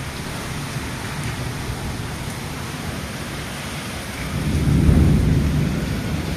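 Heavy rain pouring steadily, with a low rumble of thunder that swells about four seconds in and is loudest a second later.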